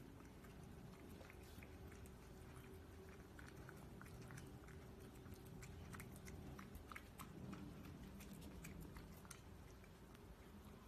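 A cat eating wet food: faint chewing, with many small irregular clicks.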